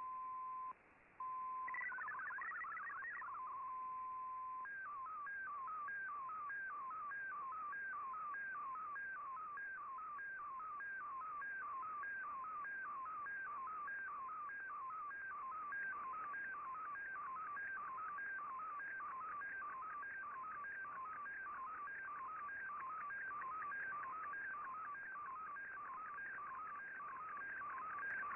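Shortwave Radiogram digital broadcast heard through an Icom IC-R8600 receiver over shortwave hiss: a steady tone with a brief dropout, a short burst of hopping MFSK data tones, another steady tone, then from about five seconds in the even, repeating warble of an MFSK picture transmission, which sends the image line by line.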